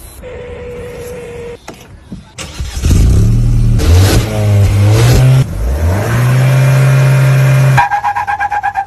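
Mahindra XUV700 engine starting about three seconds in and revving up and down a couple of times, then holding a steady raised idle. Music takes over near the end.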